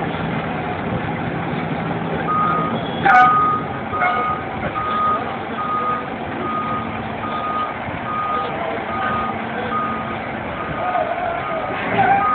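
FDNY fire engine's diesel running as it backs up, with its reversing alarm beeping at an even pace, a little over one beep a second, starting about two seconds in. A sharp, loud burst of noise about three seconds in is the loudest sound.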